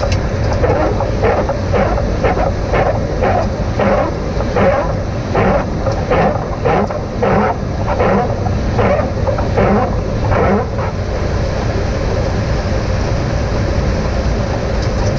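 Airliner cockpit with the steady low rush of engines and airflow, and windshield wipers sweeping at about two strokes a second, stopping about eleven seconds in. The wipers are on for landing in rain.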